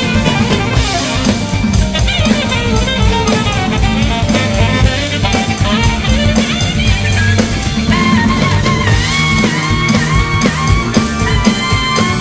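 Live rock band playing, with an alto saxophone solo over a drum kit and electric guitar groove; the sax line bends and slides up in pitch in the second half.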